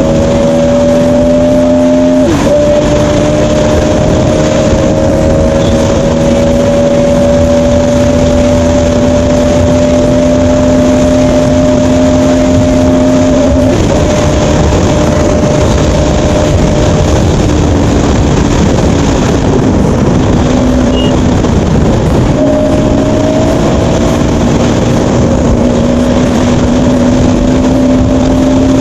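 Bajaj Pulsar NS200's single-cylinder engine pulling the bike along at road speed over a constant rushing noise. The engine note climbs slowly and breaks briefly twice, as at gear changes. It falls low and unsteady for a few seconds past the middle, then rises again.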